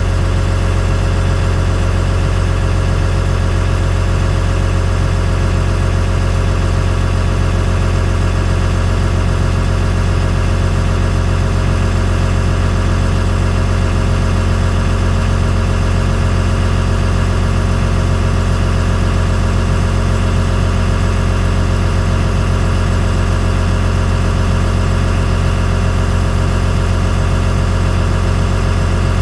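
Cat 315C L excavator's diesel engine idling steadily, heard from inside the operator's cab, with a constant low hum and no changes in speed.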